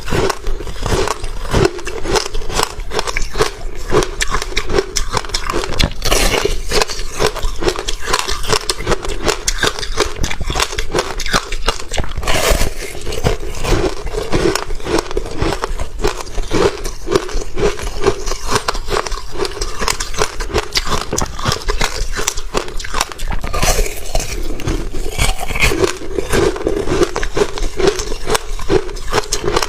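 Close-miked crunching and chewing of frozen ice, a dense, unbroken run of crackling bites.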